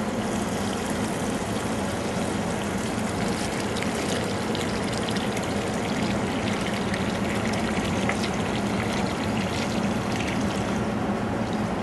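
Hot water running from a gooseneck faucet into a stainless steel pot of dried mushrooms, a steady pour with small splashes as the pot fills.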